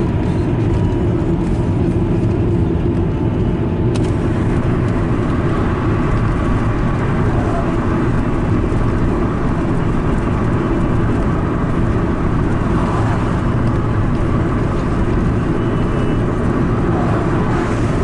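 Steady road and engine noise of a moving car, heard from inside the cabin.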